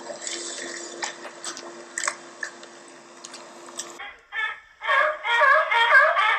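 Water splashing and slapping as sea lions scramble at the pool edge, with a faint steady hum behind. From about five seconds in, sea lions barking, in loud, rapid repeated honking calls.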